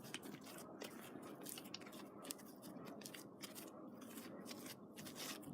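Fluffy shaving-cream slime being kneaded by hand, giving faint, irregular sticky clicks and squelches as the wet, still-sticky slime pulls off the fingers.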